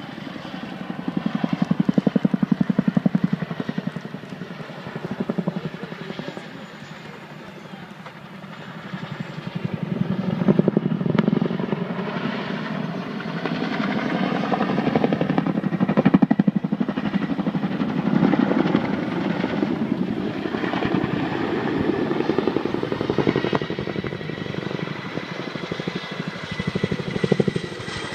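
Chinook tandem-rotor helicopter flying past in a display, its rotor blades beating in a rapid chop. The chop swells and fades as it turns, dips around a third of the way through, then grows strong again as the helicopter comes in low.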